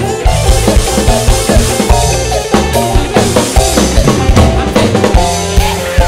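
Live dangdut koplo band playing an instrumental passage: kendang hand drums and drum kit beat out a fast, dense rhythm over bass and sustained melodic tones.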